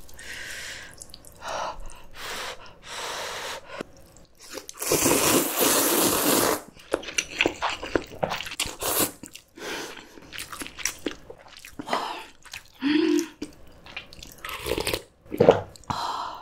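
Close-miked eating of janchi guksu noodle soup: noodles slurped in several noisy pulls, the longest lasting about two seconds starting about five seconds in, with chewing and small clicks between.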